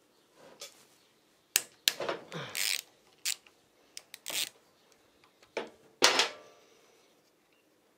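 Small metal hand tool and fasteners clinking and clicking as they are handled: a string of separate sharp metallic clicks, the loudest with a brief ring about six seconds in.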